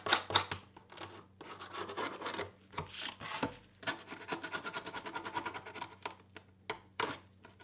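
The cut edge of a clear acrylic sheet being scraped by hand to take off the burrs of melted plastic left by angle-grinder cutting: repeated short scraping strokes with a few light knocks, and one longer, buzzing scrape about four seconds in.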